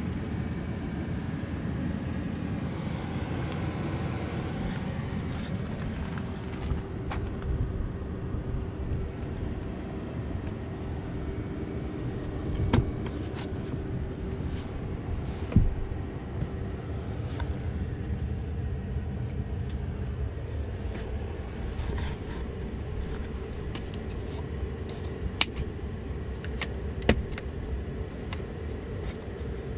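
2022 Ford F-150 Lightning electric pickup being driven, with no engine note: a steady low rumble of road and tyre noise. A faint steady hum runs for several seconds around the middle, and a few sharp knocks and clicks from bumps or rattles are scattered through.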